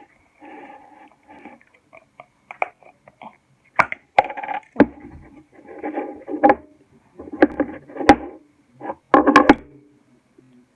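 Shop-bought slime squished and pulled by hand, making wet clicking and popping. It is faint at first, then comes in about five louder bursts of clicks from about four seconds in.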